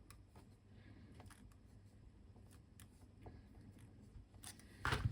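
Faint small clicks and handling noises from working on a USB plug and its cable, with a couple of louder clicks and rustles near the end.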